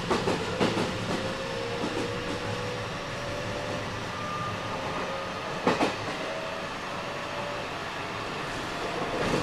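Running sound of a refurbished JR West 207 series 1000 subseries electric train, its Toshiba VVVF inverter and traction motors giving a whine that rises slowly in pitch as it picks up speed. Wheels clack over rail joints at the start, about six seconds in and near the end.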